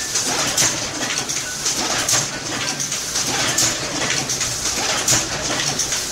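Platen letterpress printing press running, a regular mechanical clack-and-whoosh about once every three-quarters of a second as it cycles through each impression.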